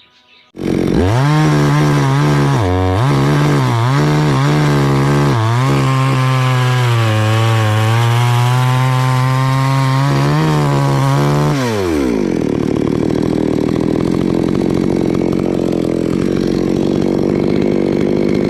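Two-stroke chainsaw bursting in loud about half a second in and revving up and down. About twelve seconds in its pitch drops and the sound turns rougher, staying loud.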